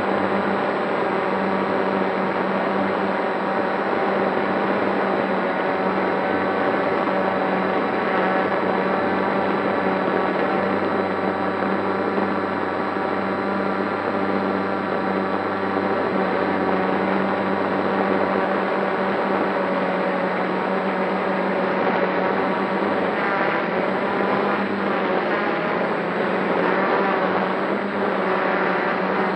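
Multirotor drone's electric motors and propellers whining steadily, heard close up from the camera mounted on the drone, as it hovers carrying a heavy test payload. The many-toned whine wavers slightly in pitch near the end as the motors adjust.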